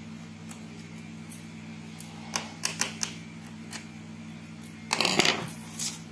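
Light plastic clicks, then a brief louder scrape, as the plastic top cover of a Compaq C700 laptop is unclipped and lifted off its case. A steady low hum runs underneath.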